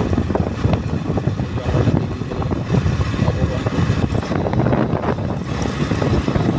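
Motorcycle running while being ridden, with wind buffeting the microphone.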